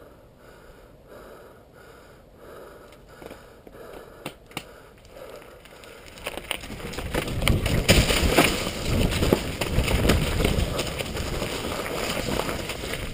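The rider breathes hard and evenly, about twice a second. From about six seconds in, the sound changes to a downhill mountain bike riding over rock and dirt, picked up by a helmet-mounted GoPro: loud rolling tyre noise with rattles and knocks from the bike and wind on the microphone.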